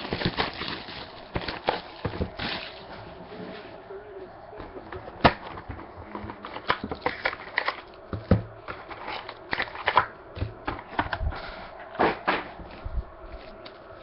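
Trading cards and cardboard packaging being handled: irregular clicks, taps and soft rustles.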